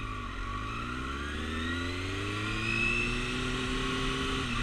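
Motorcycle engine accelerating, its pitch rising steadily, then falling away near the end as the throttle is shut for a hard quick stop.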